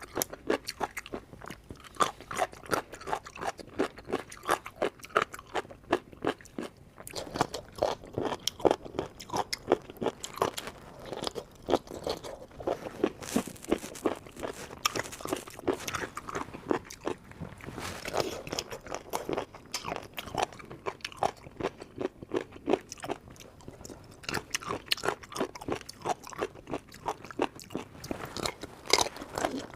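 A person chewing and crunching food close to the microphone, with many quick, crisp crunches throughout, mukbang-style.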